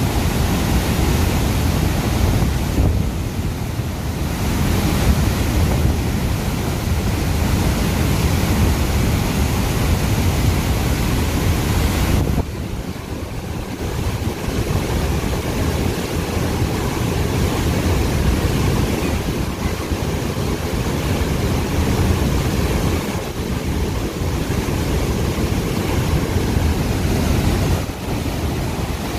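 Floodwater gushing through the lifted spillway gates of the Musi Project dam and churning at the foot of the spillway: a loud, steady rush of water that drops a little in level about twelve seconds in.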